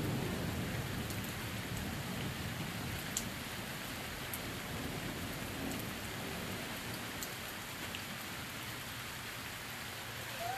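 Steady rain falling on surfaces, with a few sharp drip ticks. The tail of a thunder rumble dies away over the first couple of seconds.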